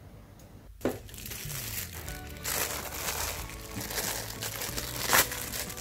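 Thin clear plastic wrapping crinkling and rustling as it is pulled off a hand fan by hand, starting about a second in.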